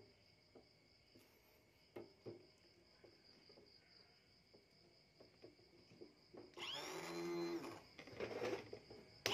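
Attila scooter starter motor run on the bench from a battery: a few light clicks as the lead touches the terminal, then about six and a half seconds in it spins up with a rising whine and runs for about a second, starting again near the end. It runs smoothly, the sign of a working starter.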